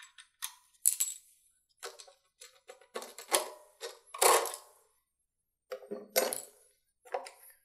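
Air cleaner parts of a Honda GX390 engine being handled: a string of separate clicks and clatters, with gaps between them, as the cover and filter element are lifted off and set down in a bin.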